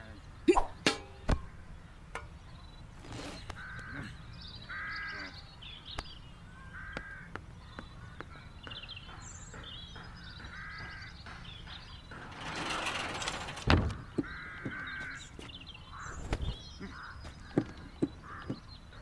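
A crow cawing several times in short separate calls, with a few sharp knocks near the start and a brief rushing noise about two-thirds of the way through.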